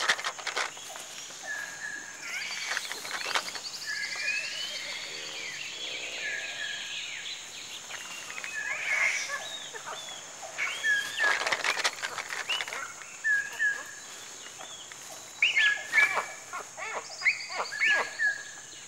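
Rainforest ambience: a steady high insect drone, a bird repeating short paired notes every second or two, and several bursts of rustling and snapping among leaves and branches as proboscis monkeys move in the tree.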